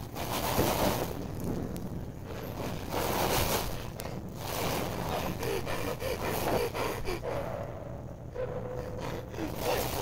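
A person breathing hard in ragged, gasping breaths, a burst every couple of seconds, with short squeaky voiced sounds between some of them.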